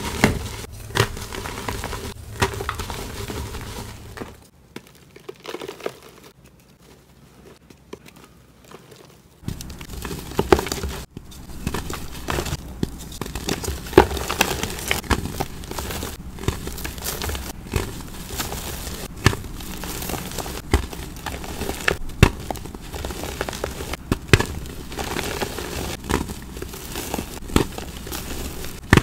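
Hands squeezing and crushing blocks of gym chalk in a tray of loose chalk powder: dense crumbly crunching and crackling with sharp little snaps. A stretch of several seconds near the start is much quieter, then the crushing comes back at full strength.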